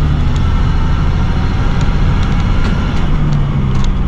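Box truck driving, heard from inside the cab: steady engine and road noise with a low hum.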